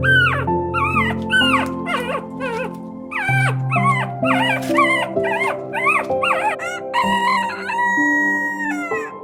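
A canine yelping in a quick string of short, high yips that fall in pitch, with one longer held call near the end, over background music with sustained notes.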